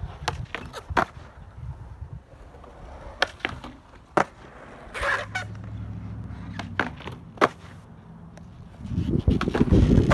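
Skateboard wheels rolling on concrete, with several sharp clacks of the board hitting the ground. Near the end comes a loud rough rumble as the board rides on or off the ledge.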